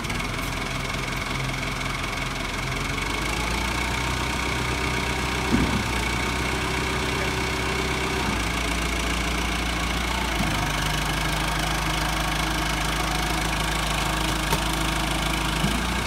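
Backhoe loader's diesel engine idling steadily, its note shifting several times as the front loader bucket is lowered, with a steady high whine over it and a brief knock about five seconds in.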